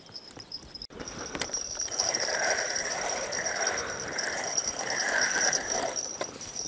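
Spinning reel being cranked to retrieve a feeder rig: a rough whirring that swells and fades about three times. A thin, steady high whine runs under it.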